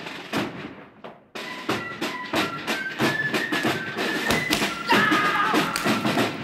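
Soundtrack music: a fast, even clacking beat with a thin, high stepping melody over it, coming in about a second and a half in after a brief dip.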